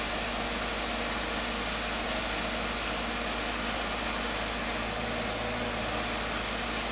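An engine idling steadily, an even drone with no change in pitch or level.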